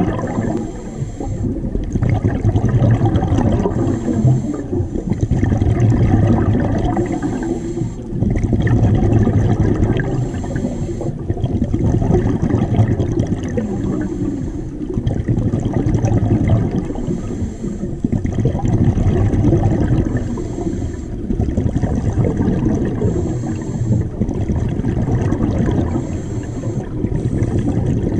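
Scuba diver's regulator breathing underwater: a short hiss of inhaled air, then a longer rumble of exhaled bubbles, repeating about every three seconds.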